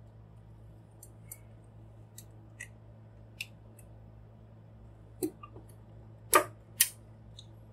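Plastic clicks from a Mastermind Creations Proditor Nimbus transforming robot figure as its arm joints are moved into a pose: a few faint clicks, then three louder ones near the end.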